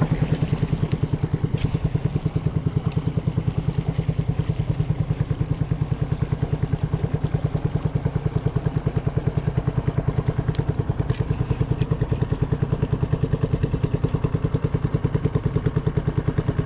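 Small boat engine running steadily with an even, rapid pulse, pushing a wooden boat along while trolling.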